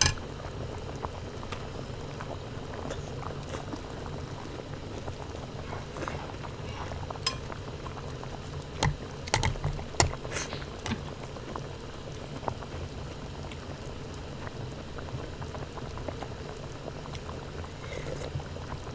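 Pot of hot-pot broth bubbling at a steady boil, with a few sharp clinks of a metal spoon on the pot and plate, mostly about halfway through.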